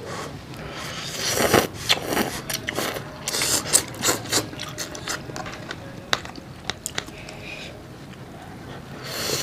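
Slurping of soupy curry instant noodles and chewing, close to the microphone. Loud wet slurps come in bursts over the first four or five seconds, then quieter chewing with a few sharp clicks.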